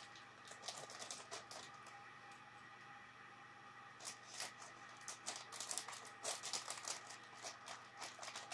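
Small plastic BlueBrixx building bricks clicking and clattering as they are handled and pressed together. The clicks come in irregular light bursts, a few about a second in and a denser run in the second half.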